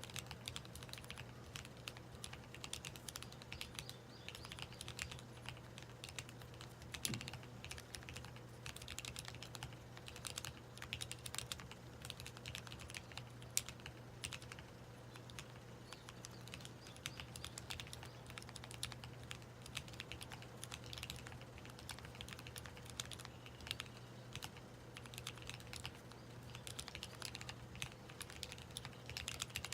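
Corne split mechanical keyboard with lubed Zeal Tealios linear switches and JTK Aqua keycaps, typed on continuously in a steady stream of irregular key clacks. A faint steady hum sits underneath.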